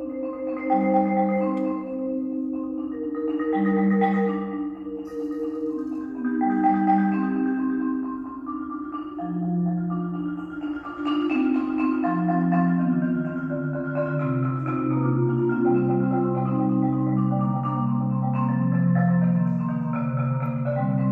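Solo marimba played with mallets: held chords sustained as rolls over a low bass line, the bass moving down to a lower held note about two-thirds of the way through.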